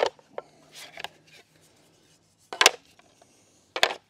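Plywood pieces of a portable wooden jump ramp knocking together as they are stacked into a bundle. There are a few sharp wooden clacks, the loudest about two and a half seconds in and another near the end.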